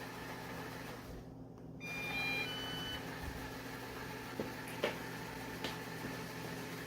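Lefant M210 robot vacuum giving a short electronic chime of several stepped beeping notes, over a steady low hum, followed by a few light clicks.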